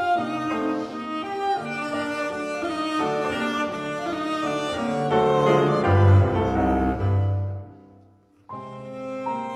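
Background music carried by bowed strings over a low bass line. It fades almost to silence about eight seconds in, then starts up again.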